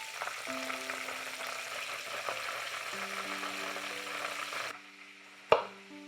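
Food sizzling in a frying pan with steady hissing, over background music. The sizzle cuts off suddenly near the end, and a single sharp knock follows a moment later.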